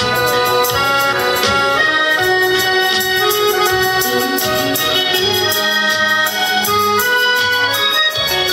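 Alto saxophone and piano accordion playing a Taiwanese popular melody together, in held notes over a steady pulse of bass notes.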